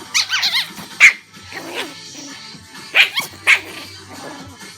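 A dog vocalizing in short bursts: a wavering, warbling whine near the start, then a sharp bark-like yip about a second in and two more around three seconds in.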